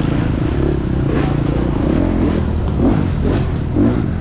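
Husqvarna FX 350 single-cylinder four-stroke dirt bike engine racing off-road, the throttle being worked so that the engine pitch rises and falls several times in quick succession in the second half.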